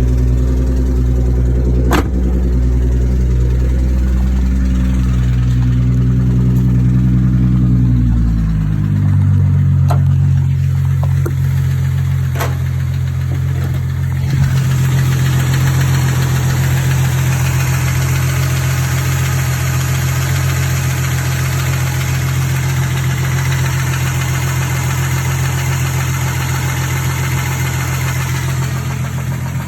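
2012 Ford Mustang's 3.7-litre V6 engine running, with a knock that the owner suspects is rod knock. The engine note shifts about nine seconds in and stays steady after that. A few sharp clicks come early on, and a rising hiss and clatter joins from about halfway.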